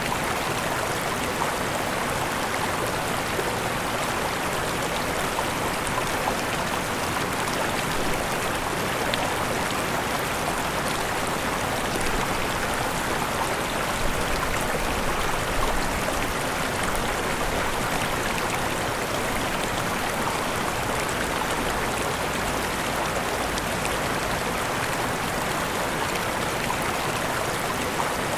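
Steady rush of falling and flowing water from a waterfall, an even splashing hiss with no break.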